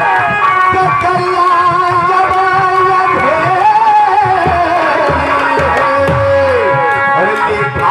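A man singing a drawn-out, wavering melodic line into a stage microphone, with instrumental accompaniment and drumming, in the sung style of Nautanki folk theatre.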